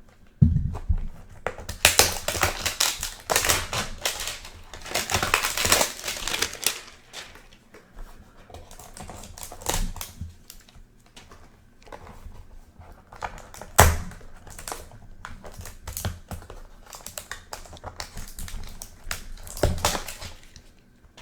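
Crinkly cellophane wrappers crackling as trading-card hanger boxes are opened and the packs taken out, with a few sharp knocks of boxes or packs set down.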